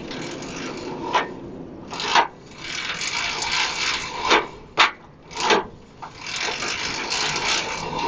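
Irregular rubbing and scraping strokes from hand work at the rear of an old steel bicycle, around the chain and coaster-brake arm: several short strokes and two longer stretches of scraping.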